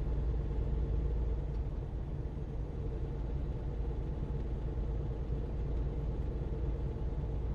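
Inside a semi-truck cab: the steady low rumble of the diesel engine and tyres on a snowy road, with the throttle let off for a slick corner.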